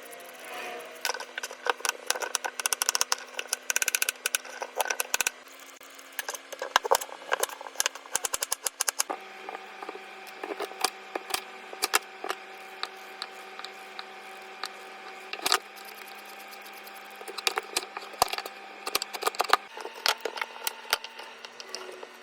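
Knife chopping vegetables on a cutting board: quick, irregular runs of sharp taps over a faint steady hum.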